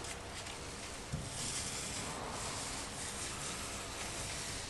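Paint roller being rolled over a boat hull, laying on CopperCoat copper-epoxy antifouling: a soft rustling hiss that swells and fades with the strokes.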